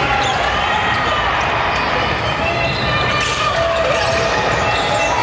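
A basketball bouncing on a court during a game, mixed with short squeaks and a steady background hubbub.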